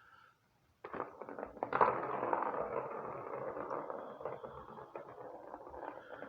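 Rustling, scraping noise with scattered clicks, starting suddenly about a second in, at its loudest a second later, and then slowly fading.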